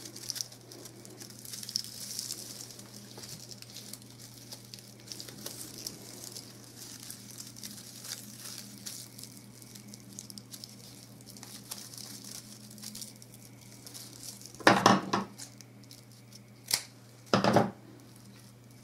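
Soft rustling and crinkling of organza ribbon and raffia strands being handled while a bow is tied, with a few short, much louder bursts of handling noise about three-quarters of the way through.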